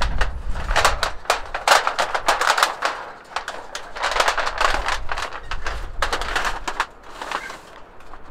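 Knife blade scraping and shaving along a wooden pole in many quick, sharp strokes, thinning out near the end.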